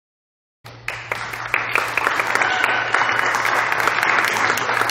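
Small audience applauding, a dense run of hand claps that starts abruptly about half a second in and holds steady, over a low steady hum.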